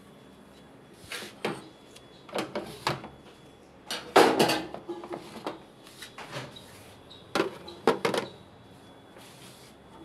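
Irregular knocks, clatters and short scrapes of parts and tools being handled inside a washing machine's opened cabinet. The loudest clatter comes about four seconds in, and the sounds stop shortly after eight seconds.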